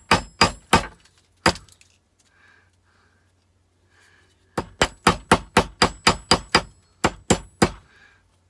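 Hammer striking a large electronic component to break it off a scrap circuit board, each blow sharp with a short metallic ring. Three quick blows and a single one just after, then a pause, then a fast run of about a dozen blows.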